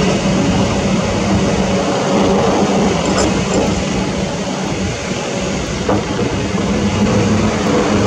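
Heavy diesel engine running steadily: a constant low hum under an even rushing noise.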